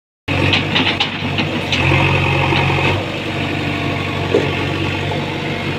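JCB 3DX backhoe loader's diesel engine running steadily at low revs, settling a little quieter about three seconds in, with a few light clicks and rattles in the first two seconds.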